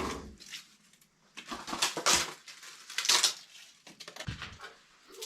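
A few short, noisy clattering scrapes about a second apart, then a few faint light knocks near the end.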